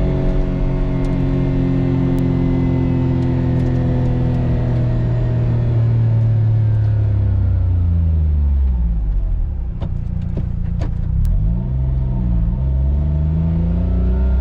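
Autozam AZ-1's small turbocharged three-cylinder engine, fitted with a catalyst downpipe and dual-tip muffler, heard from inside the cabin with the windows closed while driving. The engine note holds steady, falls as the car slows about halfway through, then dips and climbs again near the end, with a few light clicks.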